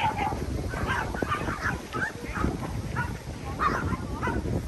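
Small dogs barking and yapping repeatedly, several short barks a second, over a low steady rumble.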